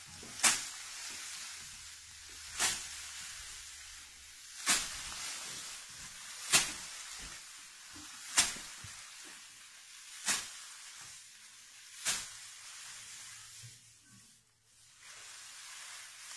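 A big sheaf of straw swung overhead and beaten down onto the hub of an old wooden wagon wheel: seven sharp whacks about two seconds apart, with straw rustling between them, then a pause near the end. The sheaf is being threshed by hand, knocking out the grain to leave straight straw for Schab thatching bundles.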